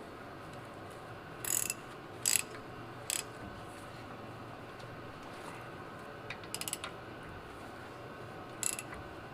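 Ratchet wrench clicking in several short spurts, with a quick run of clicks about two-thirds of the way through, over a faint steady hum.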